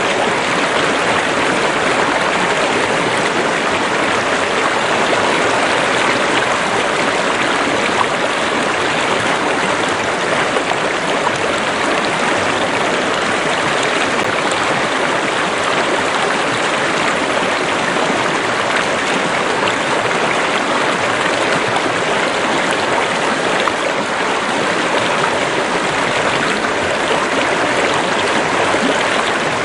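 River water running over stones, a steady rushing and babbling without change.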